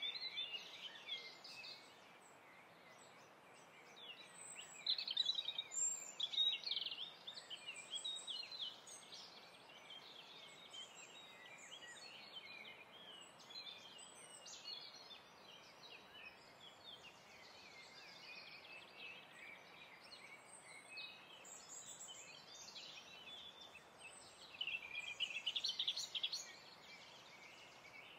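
Many birds chirping and singing over a faint steady hiss, with louder bursts of song about five seconds in and again near the end.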